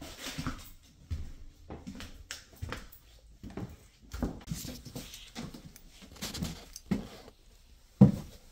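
Footsteps walking across a floor littered with demolition debris, an uneven series of thumps with some scuffing and crunching, then heavier steps starting down a staircase near the end.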